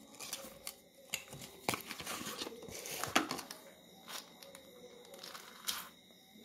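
Small cardboard box of a 4x4 puzzle cube being handled and the cube slid out, with scraping and rustling of the card, then a few separate plastic clicks as the cube is set down and a layer is turned.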